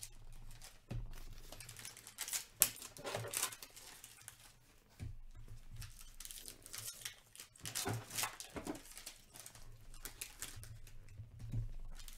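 Hockey trading cards and their foil pack wrappers being handled: the wrapper crinkles and tears, and a stack of cards is shuffled and tapped square. The result is an uneven run of rustles and small clicks, the sharpest about two and a half seconds in.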